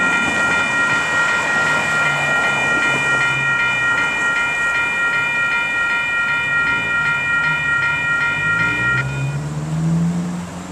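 Railroad grade-crossing warning bell ringing with a steady pulse as the crossing gates lower, cutting off abruptly about nine seconds in once the gates are down. A low engine hum rises in pitch near the end.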